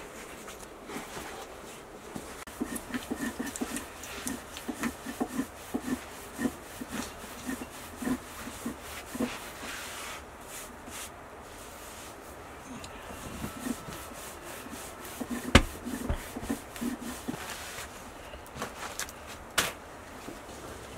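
Thin lavash dough being patted and rubbed by hand on a cushioned bread pad, making irregular soft thuds and rubbing sounds, with one sharp knock about fifteen seconds in.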